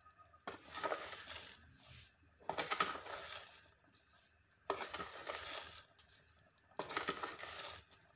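Spoon scooping granulated sugar out of a plastic container, a scraping, crunching rustle four times about two seconds apart, as spoonfuls of sugar go into the porridge.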